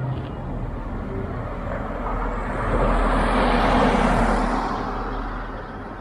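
A motor vehicle driving past on the street: traffic noise that swells to its loudest about halfway through and then fades away, over a steady low rumble of street traffic.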